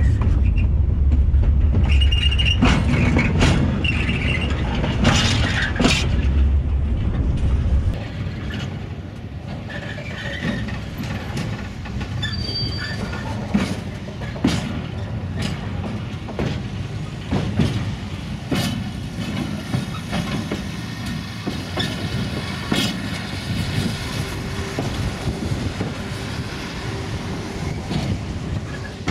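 Freight wagon wheels rolling over jointed track: for the first eight seconds a heavy rumble with clicks at the rail joints, then, heard from aboard a moving flat wagon, quieter running with sharp clacks and high wheel squeal that comes and goes.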